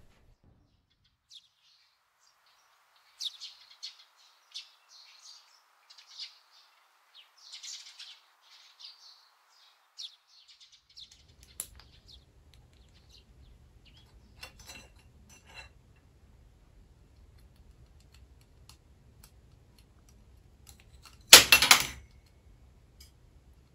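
Small birds chirping in short high calls through the first half. After that, scattered light clicks and taps from a green Amazon parrot working a brush handle with its beak, and one short, loud, harsh burst near the end.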